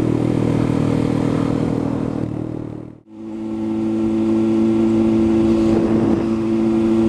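Motorcycle engine running at steady revs while riding. The sound fades out about three seconds in and fades back in on another ride, where the engine holds a steady, even note.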